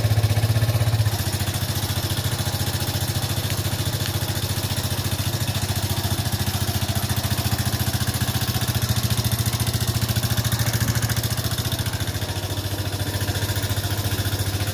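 Haojue DR 160 motorcycle's single-cylinder engine idling steadily, a little louder for about the first second and then settling. The engine has developed a noise that the owner means to find by taking it apart.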